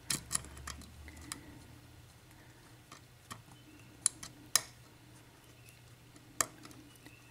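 Irregular small metallic clicks and ticks of a lock pick and tension wrench working the pin stacks of a Dorma mortice lock cylinder, re-setting pins that had dropped. There are about eight sharp clicks at uneven intervals, with the loudest near the start and a little past the middle.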